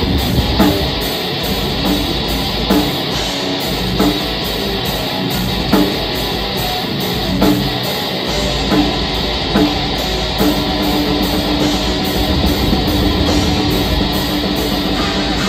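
Black metal band playing live: distorted electric guitars, bass and drum kit in a dense wall of sound. Heavy accents hit every second or two for about the first ten seconds, then a long held note rings over a steady low rumble.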